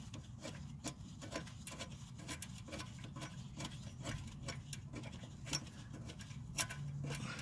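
Faint, light ticking, about three clicks a second, as a loosened brake caliper bolt is turned out by hand, over a low steady hum.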